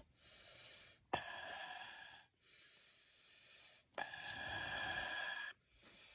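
Air blown through a straw into clear slime, inflating a big bubble: several breaths, the two loudest starting about a second in and at four seconds, each lasting just over a second with a thin whistling tone, and softer breaths between.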